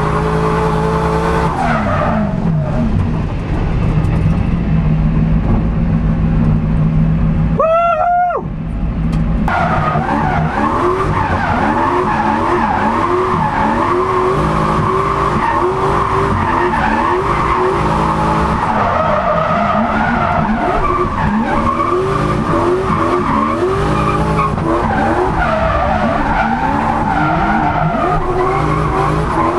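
Turbocharged Lexus 1UZ-FE V8 in a Nissan 200SX drift car heard from inside the cabin, held at high revs with the throttle worked so the pitch rises and falls again and again, with tyres squealing. About eight seconds in, the engine note briefly drops away with a short rising and falling tone, then comes back up.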